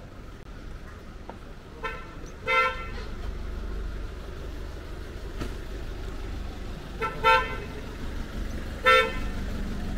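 Vehicle horn honking in short toots: a quick double toot about two seconds in, another double toot about seven seconds in and a single toot near the end. A low engine rumble runs underneath.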